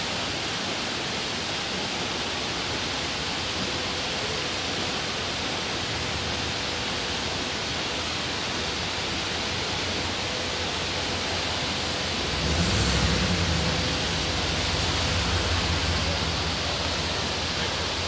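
Waterfall's steady rush of falling water. About two-thirds of the way in, a low rumble joins it.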